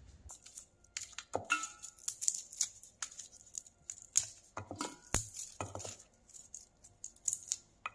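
Garlic cloves being broken apart by hand, their papery skins crackling and tearing, with irregular clinks as cloves drop into a stainless steel bowl.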